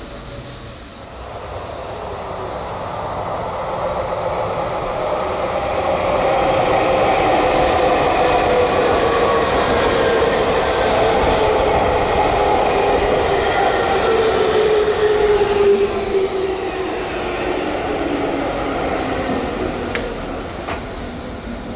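Electric commuter train passing through the station: rail noise builds over several seconds, stays loud for about ten seconds with a motor whine slowly falling in pitch, then fades. A few sharp clicks come near the end.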